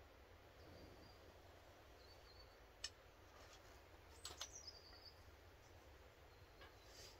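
Near silence with a few faint, short bird chirps and light clicks: one sharp click about three seconds in and a quick cluster of clicks just past four seconds.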